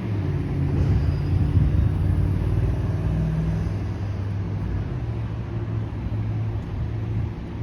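A vehicle passing with a low, steady rumble and hum, loudest in the first two seconds and then slowly easing off.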